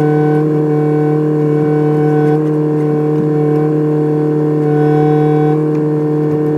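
Kubota excavator running at a steady pitch, a loud unbroken drone, with no hammering from the breaker.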